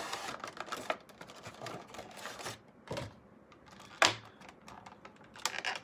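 Handling a Funko Pop box and its clear moulded plastic insert: irregular crinkling and clicking of plastic and cardboard, with one sharp snap about four seconds in.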